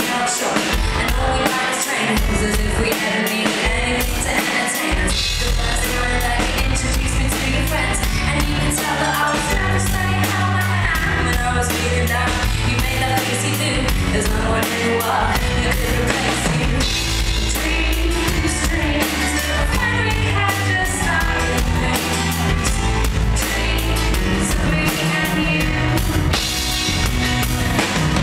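Live band performing a pop song: a female lead vocal over drums and a bass line that moves from note to note.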